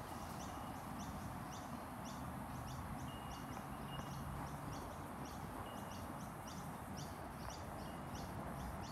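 Short, high chirping calls repeat about three times a second over a low, steady rumble of background noise.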